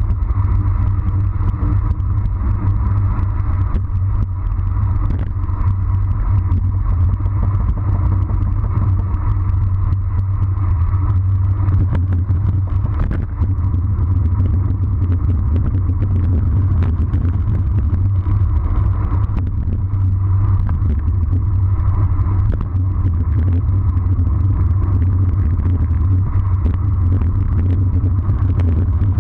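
Steady wind rumble over a handlebar-mounted camera on a road bike descending at about 40 km/h, mixed with tyre noise on the asphalt. Faint light clicks and rattles come through here and there.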